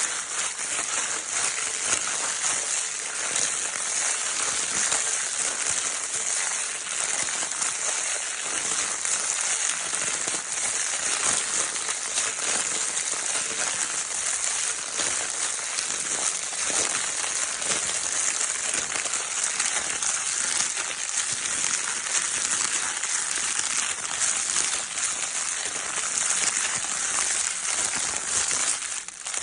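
Crinkle paper in a baby's crinkle toy being crumpled and rustled continuously: a steady, dense crinkling of many small crackles, with a brief lull near the end.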